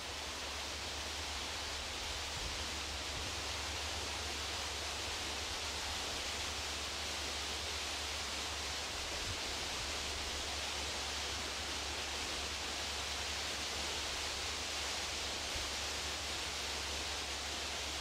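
A steady, even hiss with a low hum underneath, unchanging throughout, with no distinct calls or knocks.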